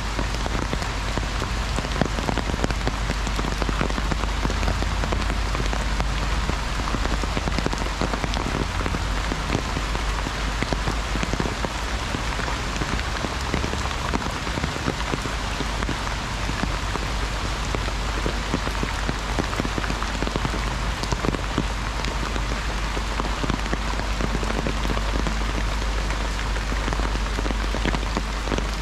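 Heavy rain falling on an umbrella: a dense, steady patter of countless drops, with a steady low rumble underneath.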